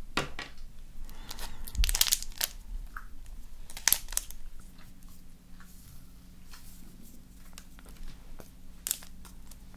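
Foil sachet of magnetic powder crinkling as it is handled and snipped open with scissors, with a few sharp crackles standing out. A faint steady low hum comes in about halfway.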